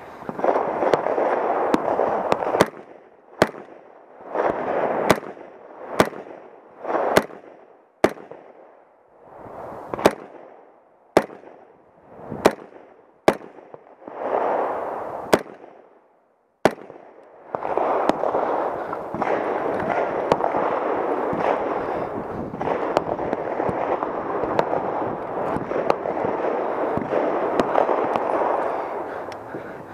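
AR-15 carbine in .300 Blackout firing a string of about a dozen single shots, roughly one a second, with sharp cracks. The shots stop after about 17 seconds, leaving a steady rushing noise with a few faint distant cracks.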